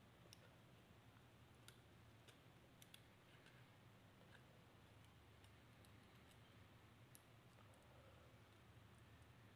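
Near silence with a scattering of faint small clicks, most of them in the first few seconds: component leads being pushed through the holes of a circuit board and the board being handled.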